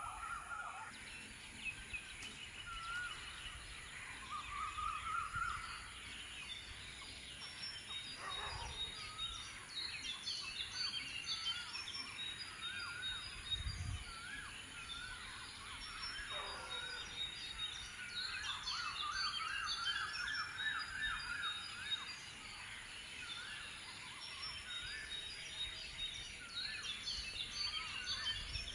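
A chorus of many birds calling at once, with overlapping repeated whistled notes, chirps and trills.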